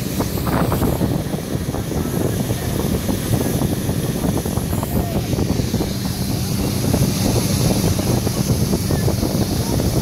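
Motorboat under way: the engine runs steadily while water rushes and splashes along the hull, with wind buffeting the microphone.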